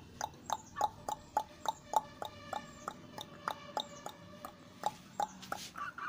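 A chicken clucking in a quick, even run of short calls, about three a second, with one longer drawn-out note about two seconds in.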